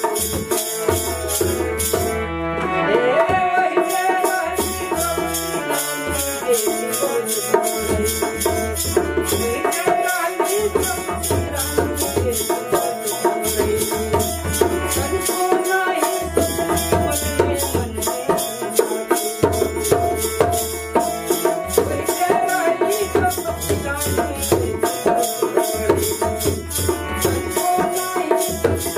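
Folk devotional bhajan accompaniment: a harmonium playing a sustained reedy melody over a dholak barrel drum beating a steady rhythm, with wooden kartal clappers clicking fast and evenly. The clappers drop out briefly about two seconds in, then resume.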